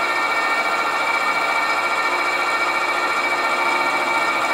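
Sieg SC4 bench lathe running steadily while a drill held in the tailstock chuck bores into a spinning cast iron billet. A steady whine with several held tones sits over an even hiss.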